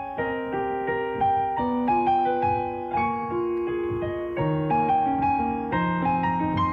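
Piano playing a slow, gentle melody, one note after another over held lower notes.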